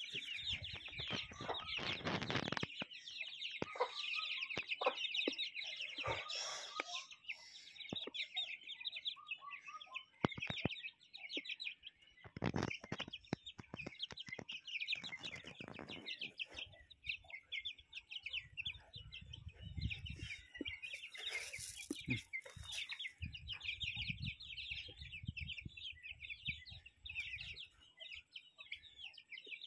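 A flock of chickens foraging: young chicks cheeping almost without pause, with hens clucking now and then and scattered light clicks of pecking and scratching.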